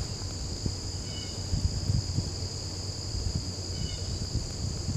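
Steady high-pitched shrilling of a summer insect chorus, with low rumbling and small bumps close by underneath and two faint short chirps, about a second in and near the end.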